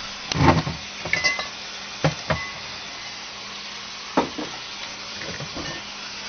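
Bottles and containers being shifted around on refrigerator shelves: a handful of separate glass clinks and knocks, one ringing briefly about a second in, over a steady low hum.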